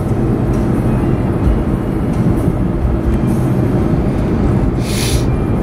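Steady low rumble of a car driving, heard from inside the cabin, with a brief hiss about five seconds in.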